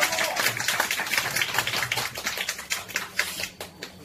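A small audience clapping, the claps thinning out and fading away toward the end.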